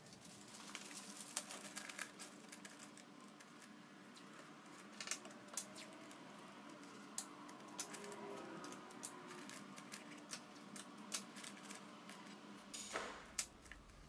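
Sheets of newspaper rustling and crackling as they are spread and pressed over a wooden box, with scattered sharp crinkles. There is a short louder rasp near the end.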